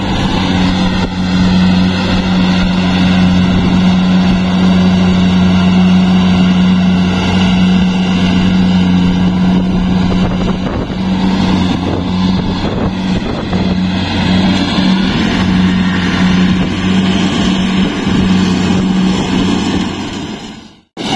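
Yanmar combine harvester's engine running steadily under load with a strong, even hum. The sound drops away sharply near the end.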